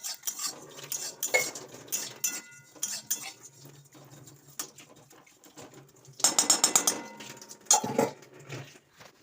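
Spatula scraping and clinking against a kadai while vermicelli is stirred and fried in ghee. The strokes come as irregular knocks with brief metallic ringing, and there is a quick rattling run of scrapes about six seconds in.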